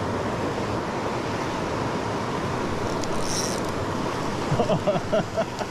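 Steady rushing of river water, with a voice coming in near the end.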